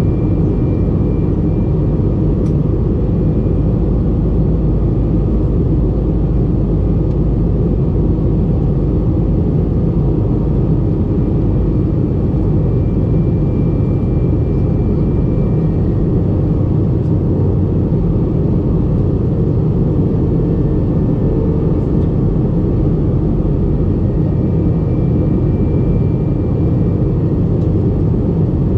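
Steady low cabin drone of an Airbus A320 in flight: engine and airflow noise, heard from inside the cabin by the wing.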